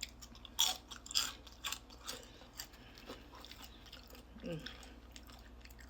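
A person biting into and chewing crispy fried chicken close to the microphone. There are several sharp crunches in the first two seconds or so, then quieter chewing.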